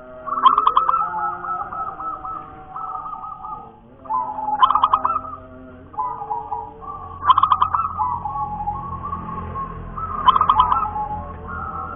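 Caged zebra dove (perkutut) cooing: four song phrases of rapid notes, about three seconds apart.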